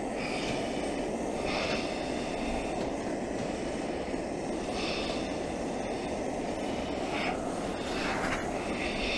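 Gas torch of a soldering iron burning steadily with a rushing flame noise as it heats a copper gutter seam. Brief higher hisses come and go several times over it.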